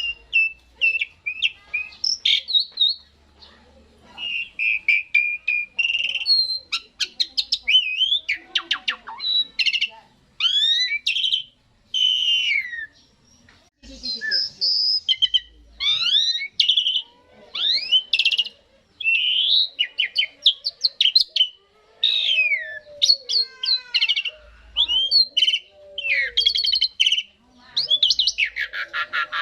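Javan pied starling (jalak suren) singing: a varied stream of whistles, chattering notes and fast clicking runs, in phrases with short pauses between them.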